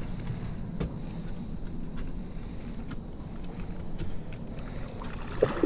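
A few faint clicks and knocks from a fishing rod and reel being handled while a channel catfish is reeled in, over a low steady rumble of moving water and wind on the microphone.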